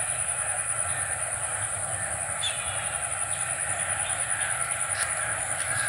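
Steady high-pitched chirring of insects over a low, unsteady rumble, with a faint short call about two and a half seconds in.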